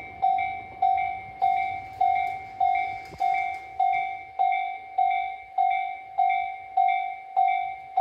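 Railway level-crossing warning bell ringing in a steady, even rhythm of about one and a half to two strikes a second, each note fading before the next. It means the barriers are down for a train.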